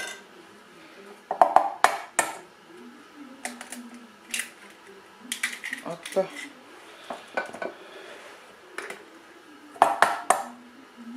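Eggs tapped and cracked on the rim of a stainless steel mixing bowl: a scattering of sharp knocks and clinks of the metal bowl, the loudest about one and a half seconds in and again near the end.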